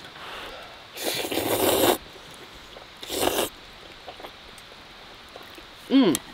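Carbonara noodles being slurped off chopsticks: one long slurp about a second in and a shorter one a little after the middle. Near the end, a short vocal sound falling in pitch.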